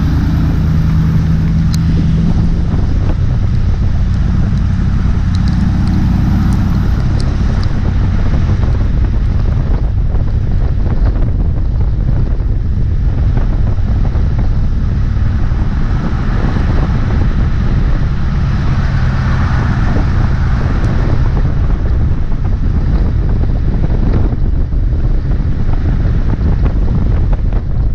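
The 2002 Dodge Ram Van 1500's 5.2 L V8 engine running steadily, with a heavy low rumble and wind noise on the microphone.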